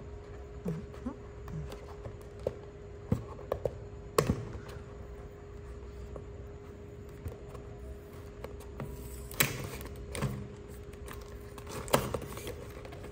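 Cardboard gift box being opened by hand: fingernails pick and scratch at the tape sealing the lid, with scattered taps and knocks on the cardboard. The strongest knocks come about four seconds in and about nine and a half seconds in, and the lid flaps are pulled open near the end.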